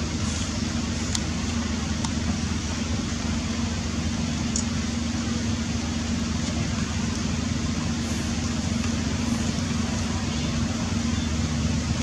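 Steady mechanical drone with a constant low hum, like a running engine, with a few faint high ticks.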